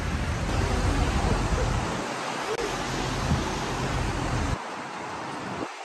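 Wind buffeting the microphone: a steady rushing noise with an uneven low rumble, which drops and thins abruptly about four and a half seconds in.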